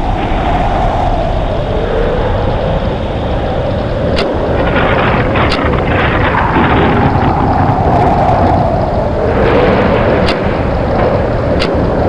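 Tornado wind sound effect: a loud, continuous rush of wind with a howl that slides up and down in pitch. A few sharp ticks come through it.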